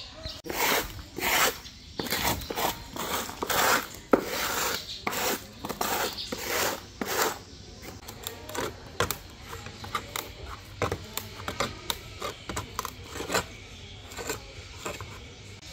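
Quick, uneven rasping strokes, loud and close together for the first seven seconds or so, then thinning out into lighter, shorter scrapes and clicks.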